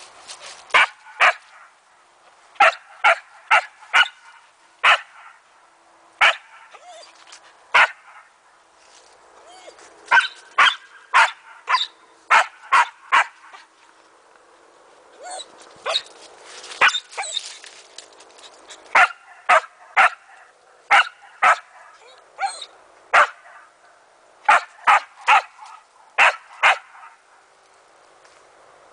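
Samoyed barking at a cat up a tree: sharp barks in bouts of several, with short pauses between the bouts.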